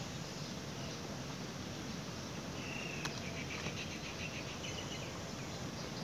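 High animal calls over a steady outdoor background hiss: a short steady note about two and a half seconds in, then a fast run of repeated chirps for a couple of seconds.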